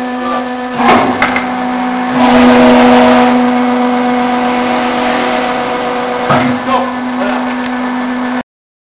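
Hydraulic power unit of a vertical single-beam stave-wood splitter running with a steady whining hum. A couple of sharp knocks come about a second in. The sound grows louder and hissier for about a second from about two seconds in, while the ram forces its wedge down through the wood billet and splits it. Another knock comes about six seconds in, and the sound cuts off abruptly near the end.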